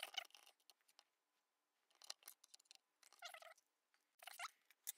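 Faint, intermittent squeaking as a large screwdriver turns screws out of the plastic base of an Xsoldering Pro soldering station, in short bursts separated by pauses.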